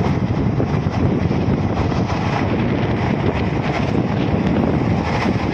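Wind buffeting the microphone: a steady, loud rumbling noise, heaviest in the low end, with a choppy flutter.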